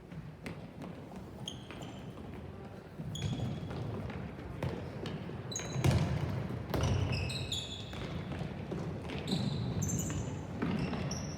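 Ball game on a hard court: a ball thumping and bouncing, with many short high squeaks of shoes on the floor.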